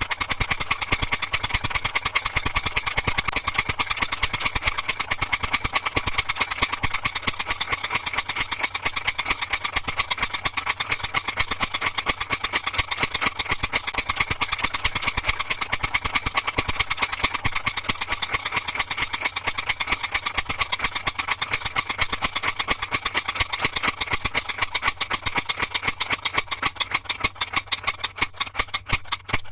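Small motor of a DIY miniature tractor running steadily with a fast, even rattle, slowing near the end into separate ticks as it winds down.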